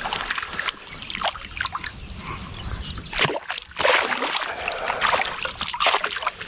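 A hooked bass thrashing at the surface beside a kayak, splashing in repeated short bursts. The biggest splashes come a little past halfway.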